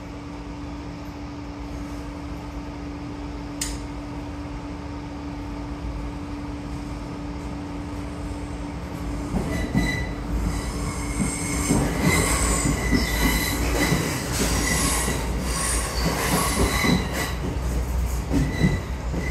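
Inside a DART 8510 class electric train: a steady hum at first. From about nine seconds in, the running noise grows louder, with rattling and high wheel squeal.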